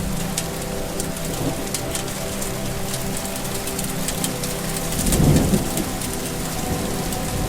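Steady rain falling, with many individual drops ticking close by. A brief low rumble swells for under a second just past the middle.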